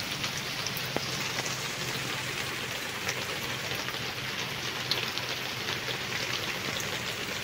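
A steady, even hiss with a faint low hum underneath and a few soft clicks.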